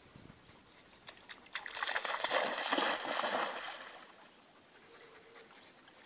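A dog bounding into shallow lake water and splashing through it, starting about a second and a half in and dying away about three seconds later.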